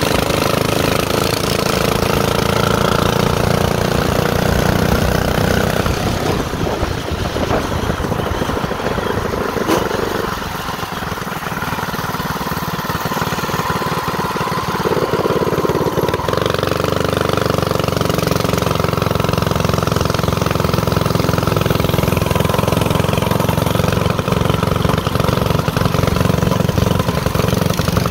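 Small engine of a motorbike-style bicycle running steadily under way. It eases off from about six seconds in, then pulls strongly again from about sixteen seconds in.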